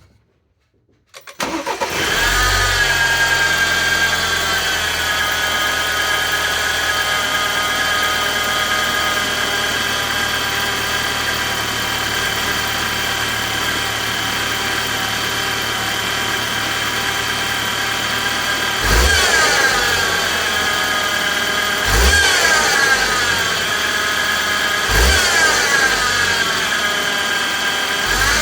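BMW N20 turbocharged four-cylinder engine cranking and starting, then idling with a steady high whine. The engine is revved briefly three times near the end, the whine rising and falling with it. The whine comes from a failing pulley bearing on the engine's belt drive.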